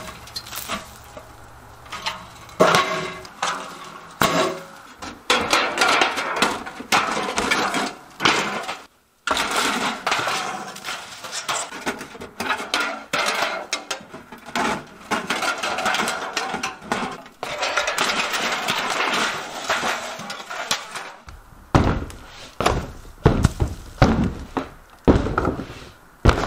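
Siding and trim being pried off a house wall and dropped: a busy run of clanks, knocks and clatter, with a few heavier thuds near the end.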